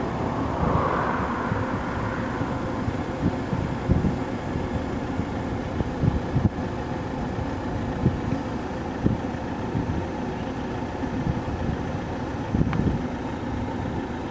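Steady outdoor rumble with wind buffeting the microphone in irregular low thumps.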